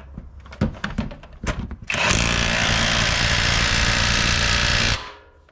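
Impact wrench running for about three seconds and stopping abruptly, driving the 19 mm bolt of the engine's torque mount home through a long socket extension. It is preceded by a few light clicks and knocks as the socket is fitted onto the bolt.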